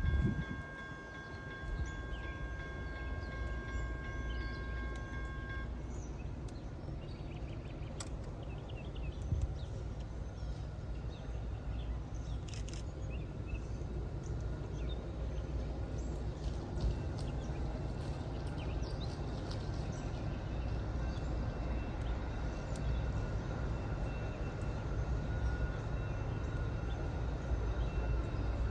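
A train's low, steady rumble, with a steady high ringing tone that cuts off about six seconds in. Faint chirps and ticks come later.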